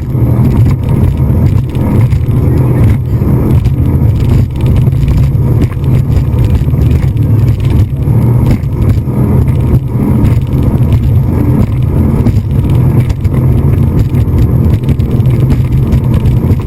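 A speedboat's engine running steadily at speed: a loud, continuous low drone.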